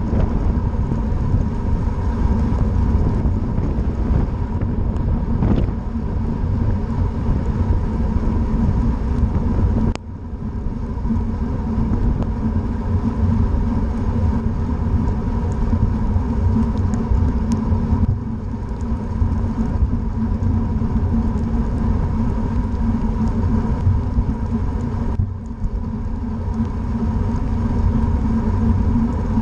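Wind rumbling on the microphone of a bicycle-mounted camera at about 20 mph, mixed with tyre hiss on wet pavement, over a steady hum. The noise dips briefly twice, near the middle and again near the end.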